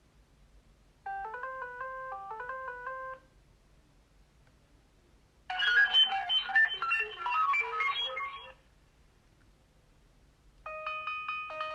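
Alcatel OT 735 mobile phone playing its built-in ringtones one after another. A short, simple electronic melody runs for about two seconds, then a louder, busier tune lasts about three seconds, and a third melody starts near the end, with brief silences between them.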